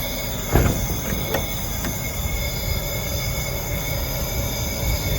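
Gas-engine-driven air compressor running steadily and pumping air, a low rumble with a steady high whine, and one sharp knock about half a second in.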